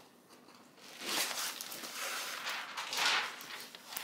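Rustling and crinkling of a large diamond painting canvas and its plastic cover film being handled. It starts about a second in and swells and fades in waves.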